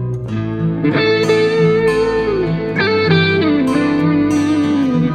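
Background music led by guitar, a lead melody with bending, gliding notes over sustained chords.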